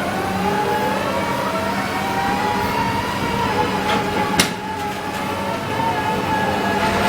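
Sany SR150C hydraulic rotary piling rig running, its engine and hydraulics making a steady hum with a whine, and a single sharp knock about four and a half seconds in.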